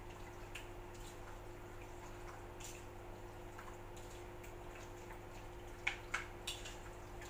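Wet squishing and small clicks of raw chicken pieces being stirred in a sticky soy-sauce marinade in a ceramic bowl, with three sharper clicks close together near the end. A steady low hum runs underneath.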